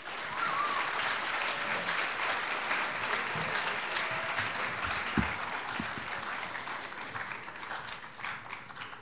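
Audience applauding, a steady patter of many hands that slowly dies away toward the end, with a soft low thump about five seconds in.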